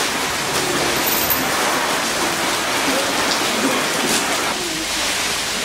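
Steady hiss of rain, with faint voices in the background.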